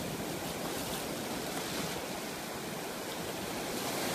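Ocean surf washing steadily onto a sandy beach, an even rushing noise.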